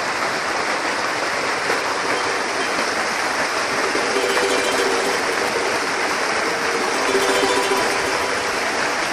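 Steady rush of a large waterfall pouring water, heavy and unbroken throughout.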